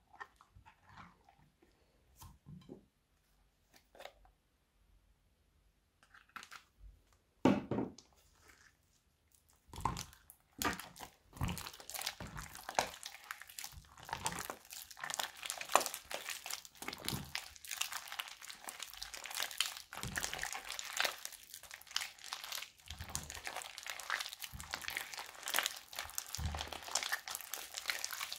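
Thick wet slime being stirred with a silicone spatula, soft occasional squelches with quiet gaps. From about ten seconds in, hands knead and squeeze crunchy slime full of small beads, making a dense, continuous crackling and squishing.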